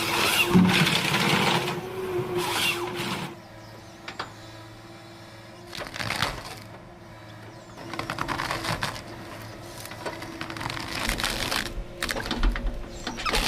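Heavy machine's engine running steadily, with irregular bursts of cracking and crunching noise over it, loudest in the first few seconds and again in the second half.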